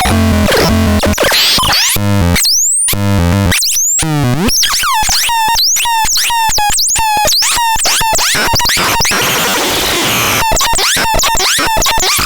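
Electronic synthesizer making harsh, glitchy sounds: stepped low bleeps at first, then fast chirps that sweep up and down and cut off sharply several times a second, with a stretch of noisy hiss partway through.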